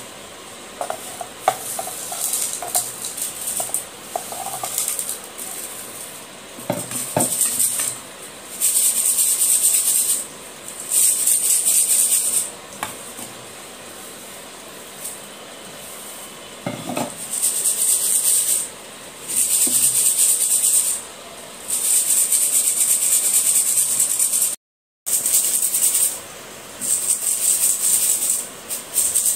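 Crushed slate pencil pieces rattling and scraping in a stainless steel mesh sieve shaken by hand, sifting out the fine slate powder. It comes in repeated shaking spells of a second or two, with short pauses between them.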